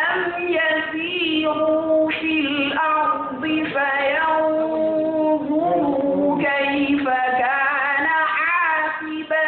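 Melodic Qur'an recitation in a single high voice, chanted in phrases with long held notes and wavering ornaments, with brief pauses between phrases.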